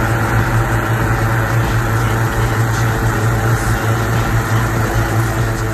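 Engine-driven balloon inflation fans running steadily: a low engine hum with a rushing of air over it.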